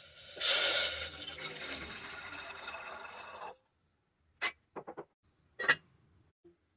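Water pouring from a plastic jug into a stainless steel pot, loudest as the pour begins, then cutting off abruptly. This is followed by four short metallic clinks as the steel lid is set on the pot, the last one the loudest.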